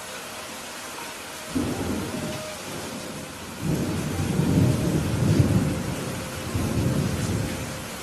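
Thunder rumbling over steady rain: a first roll about a second and a half in, then a longer, louder rumble from about three and a half seconds that dies away near the end.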